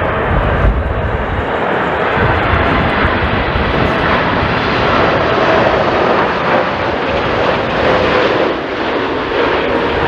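Jet airliner engines, a loud steady rush with a faint shifting whine, with strong gusty wind rumbling on the microphone.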